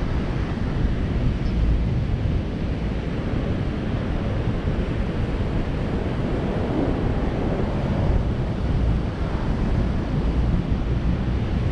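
Strong sea wind buffeting the microphone with a steady low rumble, over the wash of surf breaking on the beach.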